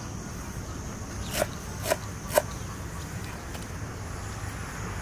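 A long knife chopping fresh herbs on a wooden board: three sharp chops about half a second apart, starting about a second and a half in, over a steady low background hum.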